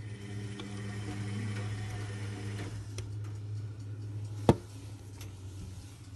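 Zanussi Lindo 100 washing machine running a cotton wash, its motor humming steadily and dropping away about halfway through, with a single sharp click near the end.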